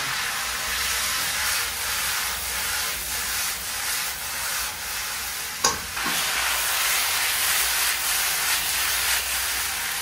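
Shredded potato and radish sizzling in a pan as they are stirred, the little water just added cooking off. A single sharp knock about halfway through.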